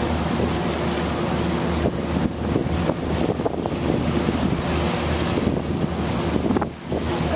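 Ferry's engine droning steadily under wind buffeting the microphone, with water washing past the hull. The wind noise drops away briefly near the end.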